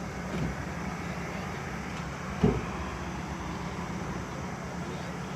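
Steady road-traffic rumble with one short, low thump about two and a half seconds in.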